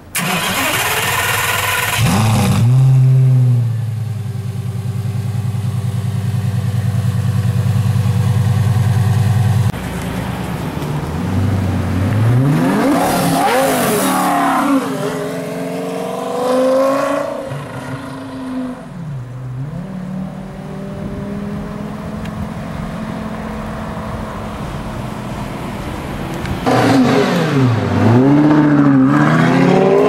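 Lamborghini Gallardo V10 starting with a loud flare and settling into a high steady idle, which drops to a lower idle about ten seconds in. The engine is blipped a few times in the middle, then accelerates hard near the end in a run of rising sweeps.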